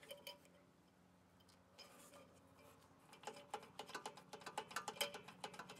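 Faint, irregular small metallic clicks and ticks of a mower engine's governor spring and linkage being handled and hooked back onto the carburetor, getting busier about three seconds in.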